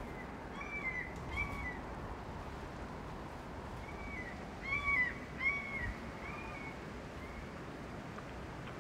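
A bird crying: short arched calls, two about a second in, then a run of about five more from about four seconds in, over a steady background hiss.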